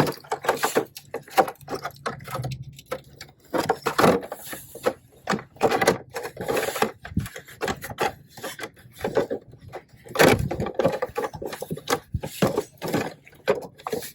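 Irregular knocks, rubs and scrapes of the hard plastic parts of a remote-control Jeep Wrangler model being handled and pressed into place by hand.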